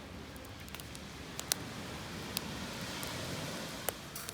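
Wood campfire crackling: a few sharp pops over a rushing hiss that swells about halfway through and then fades.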